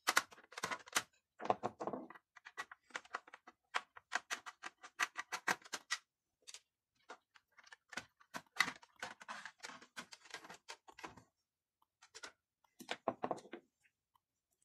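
Plastic clicking and rattling as the black plastic three-disc carousel tray of a Samsung mini hi-fi is worked loose and lifted out, coming in irregular clusters of sharp clicks with short pauses between.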